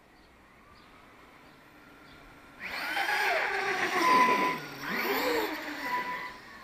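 Battery-electric RC truck's motor whining under throttle in two surges. The pitch rises and falls with each surge, starting about two and a half seconds in.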